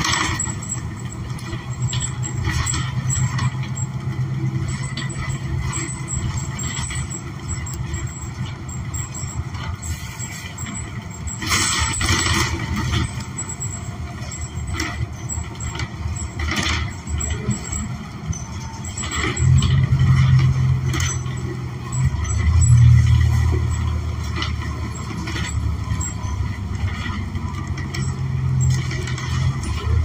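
Interior of a New Flyer XN40 city bus under way: the Cummins Westport ISL G natural-gas engine and Allison automatic transmission give a steady low drone, which grows louder for several seconds past the middle as the bus pulls harder. A few short rattles from the cabin cut through.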